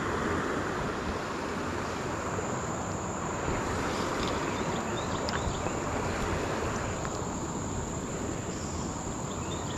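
A steady high-pitched insect drone over a constant rushing hiss of flowing creek water.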